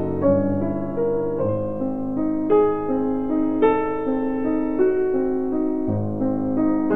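Background piano music: a slow melody of single notes struck about once a second over sustained chords.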